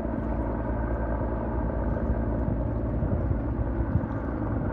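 Steady low engine drone with a faint pulsing in the low end, holding an even level throughout.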